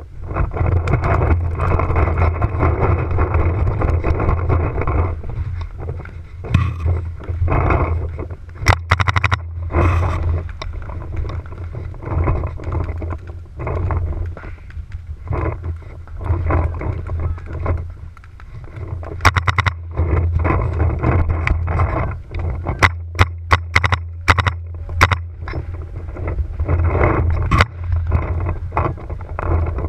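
Strong wind buffeting the microphone, a heavy steady rumble, with sharp pops of paintball markers firing, in quick strings of shots around a third of the way in and more often in the second half.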